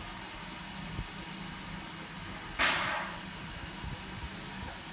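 Steam locomotive standing with steam hissing steadily, and one short, louder blast of escaping steam about two and a half seconds in.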